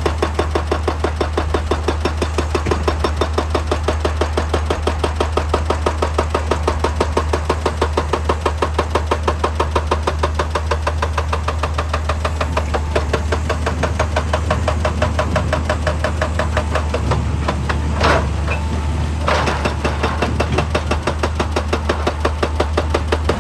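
Hydraulic breaker hammer on an excavator pounding rock in rapid, even blows over the machine's engine hum, with two short louder noisy bursts near the end.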